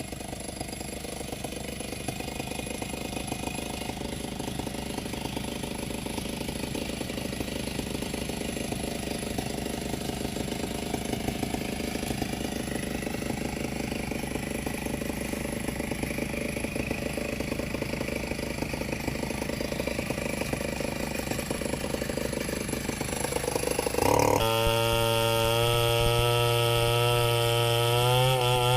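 Two-stroke chainsaw engine running at lower speed and growing slowly louder. About 24 seconds in it jumps suddenly to a louder, high, steady full-throttle pitch.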